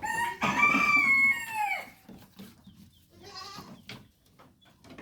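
Goat kid bleating: one loud, long bleat that falls in pitch at its end, then a shorter, fainter bleat about three seconds in.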